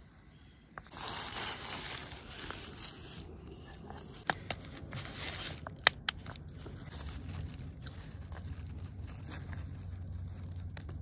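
Crumpled newspaper rustling and crinkling as it is unwrapped from a boiled egg, with a few sharp cracks in between, then quieter handling as the egg is peeled.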